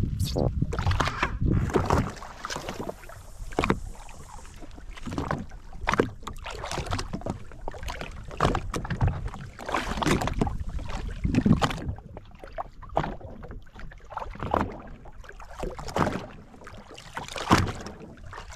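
Sea water slapping and splashing against the hull of a drifting jet ski, with irregular knocks and some wind on the microphone.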